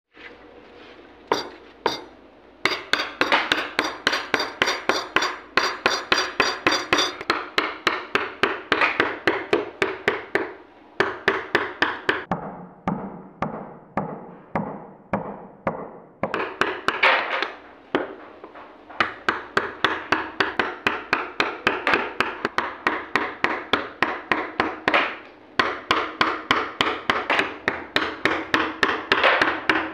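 Wooden carving mallet tapping a carving chisel into wood in quick, even strokes, about three or four a second, with short pauses every few seconds.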